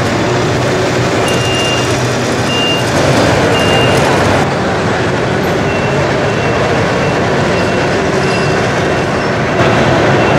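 Busy exhibition-hall din of running model vehicles, with a short high beep repeating about once a second, like a reversing alarm. The mix changes abruptly about four seconds in and again near the end.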